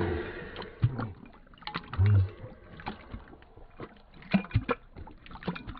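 Dog lapping water from a bowl, in slow motion: irregular wet laps and splashes of tongue on water. About two seconds in, a brief low hum-like sound is the loudest thing.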